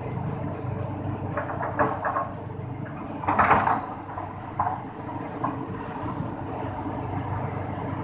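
Tata Hitachi excavator's diesel engine running steadily, with a few short knocks and a louder half-second rush of earth about three and a half seconds in as its bucket tips soil into a dump truck's steel bed.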